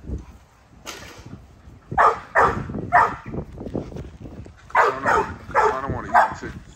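Bully dogs barking repeatedly in two volleys: a few sharp barks from about two seconds in, then a second run of four barks from about five seconds in, excited by chickens outside their kennel.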